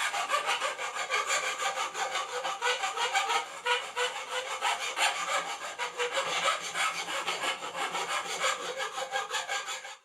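Hand file rasping back and forth over the freshly hacksawn end of a bicycle fork's steerer tube, deburring and tidying the cut, in quick, even strokes that stop abruptly.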